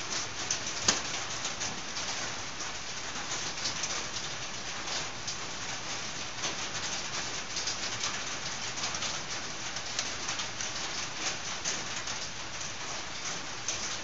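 Light clicks and small scrapes of a motorcycle carburetor's metal parts being handled and worked over, with one sharper click about a second in, over a steady hiss.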